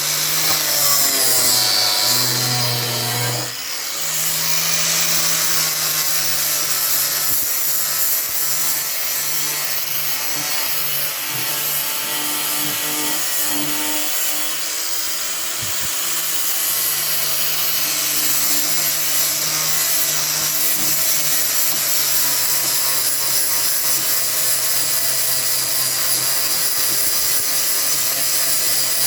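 Makita angle grinder running steadily while sanding old paint off wooden boards: a constant motor hum under a harsh rasping of the abrasive on the wood, with a brief dip in level about three and a half seconds in.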